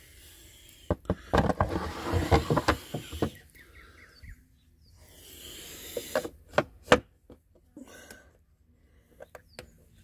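Handling a beehive's white plastic pest tray against its wooden base: a flurry of clattering knocks and scrapes for a couple of seconds, then a few separate sharp knocks a few seconds later.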